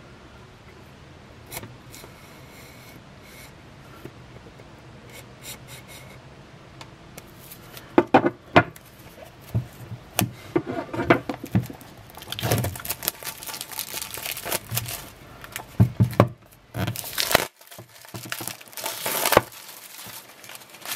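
Plastic shrink-wrap on a phone's retail box being picked at and torn off by hand: after several quiet seconds of light ticks, irregular bursts of crinkling and tearing with a few sharp crackles.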